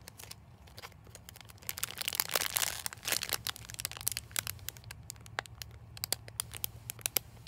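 Clear plastic bag crinkling as a squishy toy sealed inside it is handled: irregular crackles, densest about two to three and a half seconds in, then sparser.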